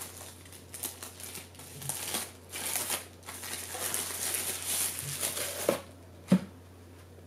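Rustling and crinkling of a protective bag as a camera lens is pulled out of it, then two short knocks as the lens is handled, the second sharp and the loudest.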